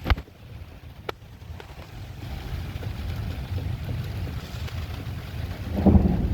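Strong storm wind gusting and buffeting, with a low rumble that builds and swells louder near the end. A sharp knock at the start and another about a second in come from an old screen door rattling in the wind.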